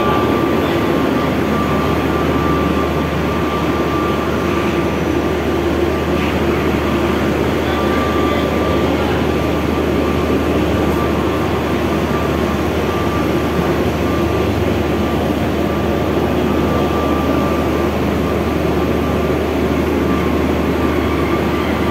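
Steady drone of a car ferry's engines and machinery on its enclosed vehicle deck: a deep hum with a thin steady whine running through it.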